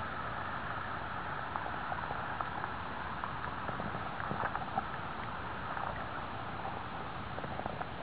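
Shallow river water running steadily over rocks, with scattered small ticks that come more often in the second half.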